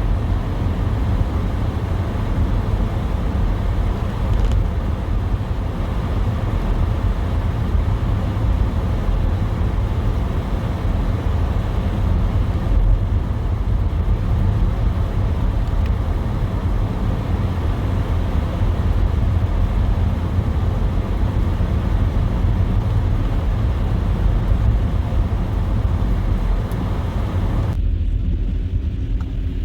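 A car driving on a snowy parkway: steady low road and engine rumble with a hiss of tyres. Near the end the hiss falls away, leaving only the low rumble.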